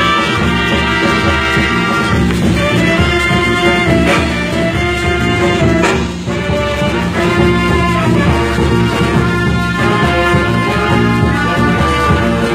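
A large popular orchestra playing live, its brass section of trumpets and trombones carrying the melody over bass and drums. It plays a full-band run-through at a sound check.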